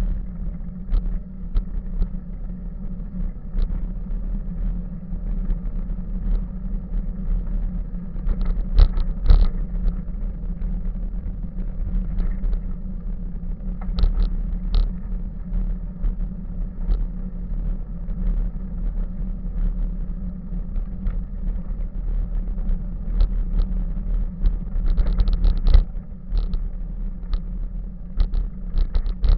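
Bicycle rolling over a rough dirt-and-gravel path, heard through a camera mounted on the bike: a steady low rumble of tyres and frame vibration, with frequent rattling knocks over bumps, some bunched together at about nine seconds and again near the end.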